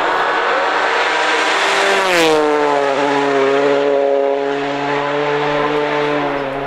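Rally car passing at speed, its engine note dropping in pitch about two seconds in as it goes by, with a brief burst of noise at that moment. It then holds a lower steady note as it drives away.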